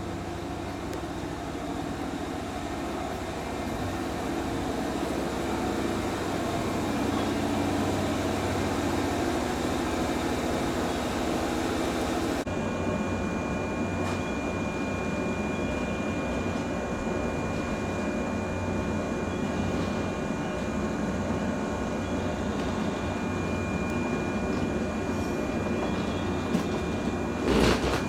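Electric commuter trains standing at a station platform: a steady mechanical hum from their onboard equipment, which changes abruptly about twelve seconds in and then carries a thin high whine. A few sharp knocks near the end.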